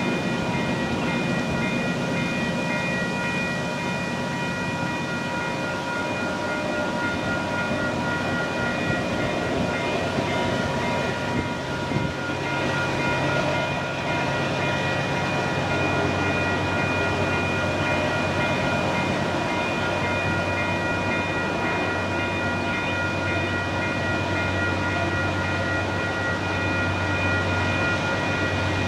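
Train led by a GE B40-8 diesel locomotive running, a steady low engine rumble with constant high-pitched tones held over it; the engine sound grows stronger about halfway through.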